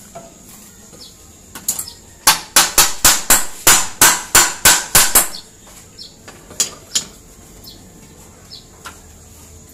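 Hammer blows at the bottom track of an aluminium sliding door during installation: a quick run of about a dozen sharp strikes, about four a second, starting a couple of seconds in and stopping about three seconds later, with a few lighter knocks before and after.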